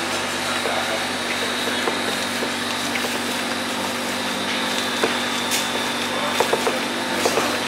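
Electric meat grinder's motor running with a steady hum. In the second half come a few soft slaps and squelches of hands kneading ground meat in an aluminium basin.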